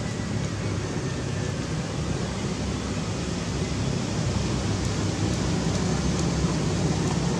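Steady rushing background noise, heaviest in the low end, with no distinct events.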